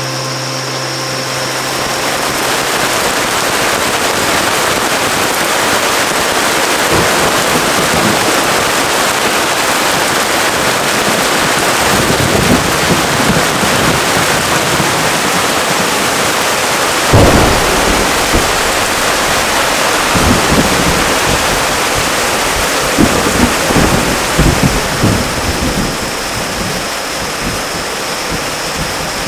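Heavy rain falling steadily, with thunder rumbling several times; the loudest thunder starts sharply a little past halfway, and a run of rumbles follows near the end.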